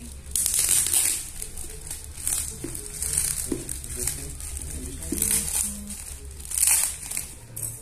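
Clear plastic bag crinkling in a run of rustling bursts as hands pull at and unwrap a package.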